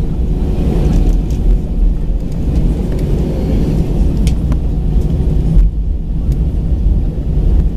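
Airbus A319 jet engines and wheels heard from inside the cabin as the airliner rolls along the runway: a steady low rumble, with a few faint clicks and rattles.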